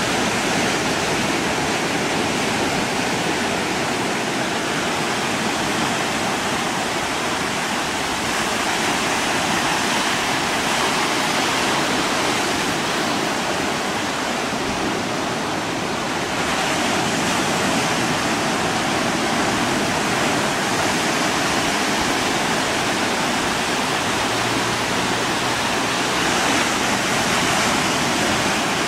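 Steady rushing noise of choppy open water, with a faint steady tone underneath.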